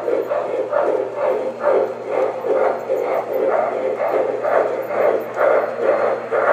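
O scale model train running: a steady rhythm of steam chuffs from a model steam locomotive's sound system, about two or three a second, over the low hum of the running train.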